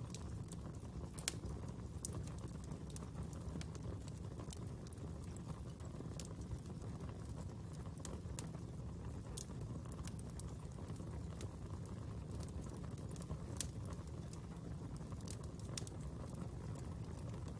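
Fire crackling: irregular sharp pops and snaps over a steady low rumble, the strongest pop about a second in.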